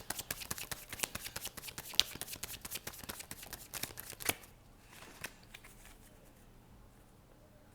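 Tarot deck being shuffled by hand: a fast run of card riffling and snapping that stops about four seconds in, with a few faint taps after it.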